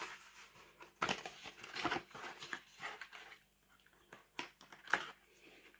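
Folding cardboard carton being opened by hand: irregular rustling and scraping of paperboard flaps, with a couple of sharp clicks near the end.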